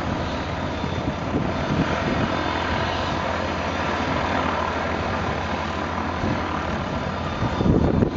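Light propeller aircraft engine running at a steady drone. Near the end, wind starts buffeting the microphone.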